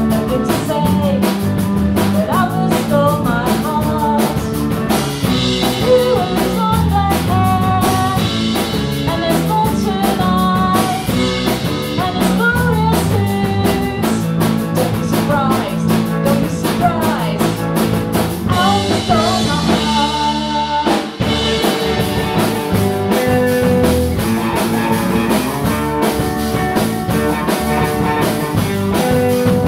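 Indie pop band playing live: electric guitars, electric bass and a drum kit, with a woman singing lead, in a rough rehearsal recording. The band drops out for a moment about 21 seconds in, then carries on.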